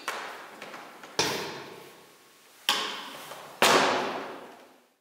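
Three sharp impact hits, each trailing off in a long fading echo, spaced about a second and a half and then about a second apart; the last is the loudest.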